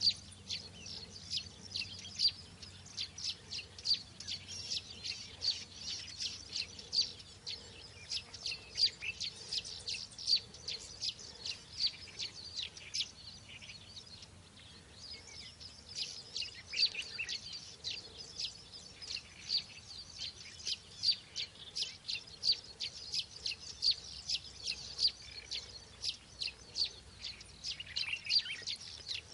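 Birds chirping: a dense run of short, high chirps, several a second, with a brief lull about halfway through.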